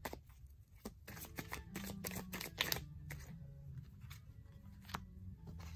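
Tarot cards being shuffled and handled, a quick run of papery flicks and snaps through the first half, then a single snap about five seconds in.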